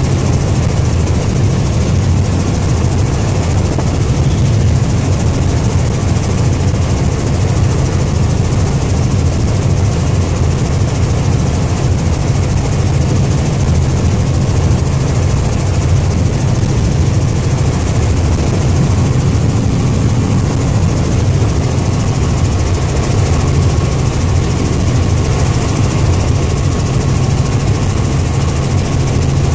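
Steady drone of a light helicopter's engine and rotor in flight, heard from inside the cabin.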